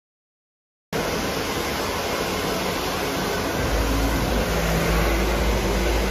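Silence, then about a second in a steady rushing, blowing noise of a hair salon starts abruptly. A low hum joins it at about the middle.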